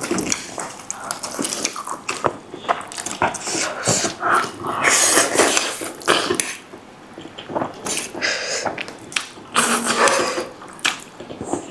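Wet, irregular slurping and chewing of spicy noodles close to the microphone, in quick uneven bursts.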